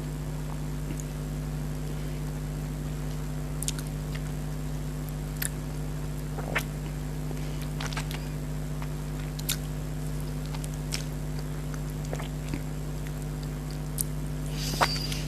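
Someone eating mango: sparse wet mouth clicks and soft chewing sounds, with a busier moment near the end, over a steady low hum.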